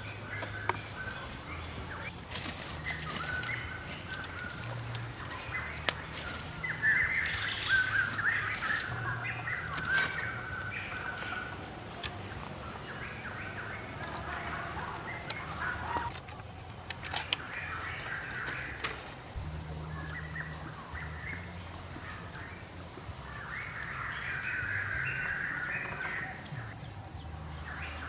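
Birds chirping in bursts, with scattered sharp clicks that fit the crackle of glowing wood embers.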